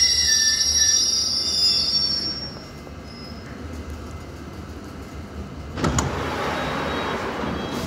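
London Underground S Stock train braking to a halt, its wheels squealing high for the first two seconds before it settles to a low rumble. About six seconds in there is a sharp click and then a hiss of air for nearly two seconds as the doors open.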